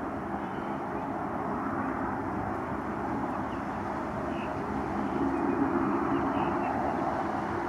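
Jet airliner engines running at the airport: a steady rumble that swells slightly about five seconds in.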